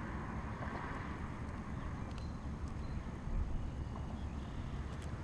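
Steady low rumble on the microphone with a few faint clicks and taps as a hook is worked free from deep in a fish's mouth.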